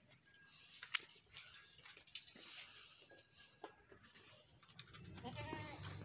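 Goat bleating once near the end, a drawn-out call, after scattered small clicks and knocks while the goats feed.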